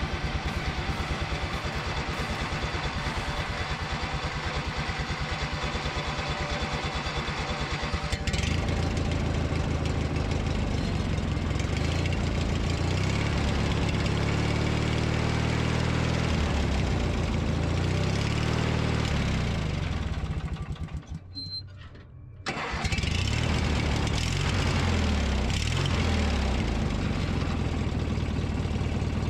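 A newly fitted electric starter cranks a cold Briggs & Stratton opposed-twin mower engine in a fast, even rhythm. The engine catches about eight seconds in and runs with its speed rising and falling. A little past twenty seconds the sound drops out briefly, then the engine is heard running again.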